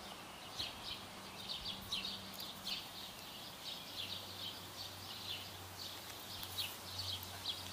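Birds chirping, short high chirps repeating irregularly several times a second, over a faint steady low hum.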